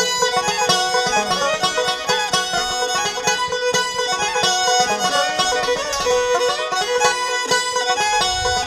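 Live bluegrass string band playing an instrumental intro, the fiddle carrying a quick melody over picked and strummed strings.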